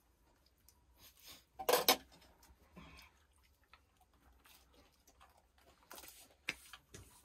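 Light clinks and rustles of dishes and food being handled in a small room, with one louder rustling clatter just under two seconds in and a couple of sharp ticks near the end.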